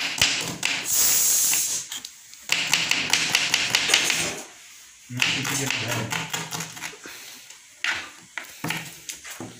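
Kitchen knife slicing red onion on a plastic cutting board, in runs of quick taps of the blade on the board. A hissing noise fills the first two seconds, and a voice is heard faintly in the middle.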